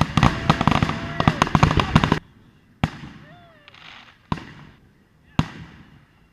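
Fireworks display: a rapid volley of dense, crackling bangs that stops abruptly about two seconds in, then three single bangs about a second and a half apart, each trailing off in an echo.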